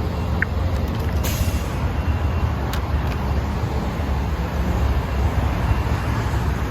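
Road traffic at a busy intersection: a steady low engine and tyre rumble from passing cars and heavy vehicles, with a short hiss about a second in and a sharp tick near three seconds.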